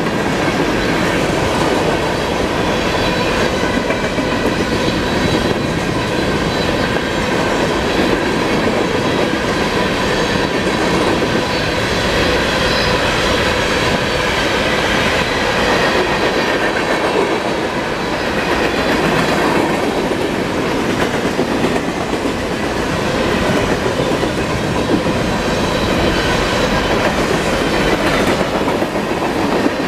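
Freight cars of a CSX manifest train rolling past at close range: a steady, loud rumble and clatter of steel wheels on the rails, with steady high-pitched tones running through it.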